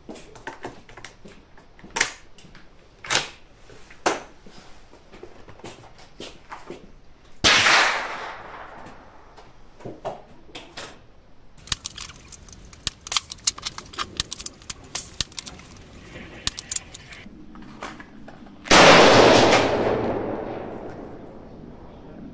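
Two shots from a Hammerli Arms Force B1 .22 LR rifle, about eleven seconds apart, each followed by a tail that dies away over two to three seconds; the second shot is the louder. Sharp clicks and clatter come between the shots.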